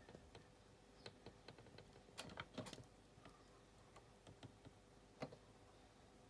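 Near silence: faint room tone with scattered light clicks, a few of them bunched together about two seconds in.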